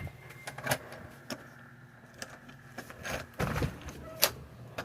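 Scattered sharp clicks and knocks of handling, with a louder rattling clatter about three and a half seconds in.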